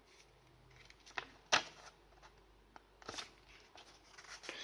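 Light handling of paper instruction leaflets: a few sharp taps and clicks, the loudest about a second and a half in, over faint rustling.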